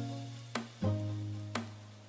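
Background music: plucked notes, each ringing out and fading, over a sustained low note.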